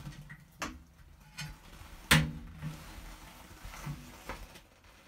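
Latch handle and internal airlock door of an anaerobic chamber clicking and knocking as the handle is turned and the door pulled open, with a few separate knocks, the loudest about two seconds in.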